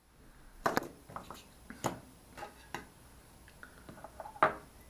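Irregular clicks and knocks of a hand picking up and handling a small LED-studded circuit board and hand tools on a hard tabletop, about a dozen in all. The sharpest is a knock about four and a half seconds in.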